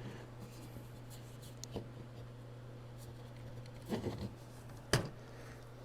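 Quiet handling noises: rubbing and scraping with a few soft clicks and knocks, the sharpest about five seconds in, over a steady low hum.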